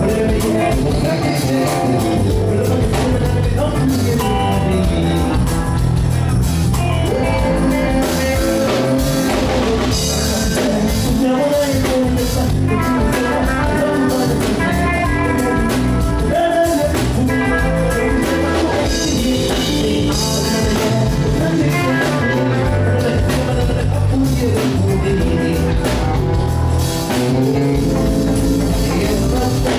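A band playing loud music with singing, guitar and a drum kit, keeping a steady beat.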